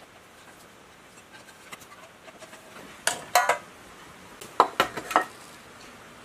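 Metal clinks and clatter of a dismantled small generator engine's parts being handled and set down on a workbench: a quick cluster of sharp, briefly ringing clinks about three seconds in, and another about a second and a half later.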